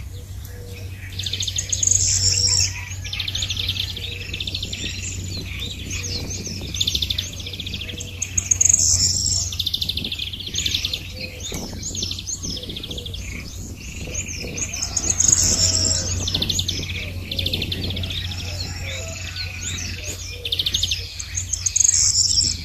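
Many small birds chirping and twittering, with calls overlapping and repeating throughout, over a low steady hum.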